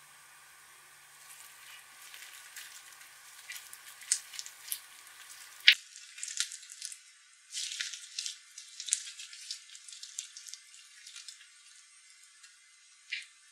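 Slime full of small foam beads (floam) being squeezed and stretched by hand: irregular wet crackling and popping clicks, busier from about a second in, with one sharp loud pop about halfway through.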